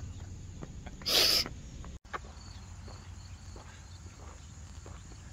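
Footsteps of people walking on a paved path, faint and about two steps a second, with a short loud burst of noise about a second in.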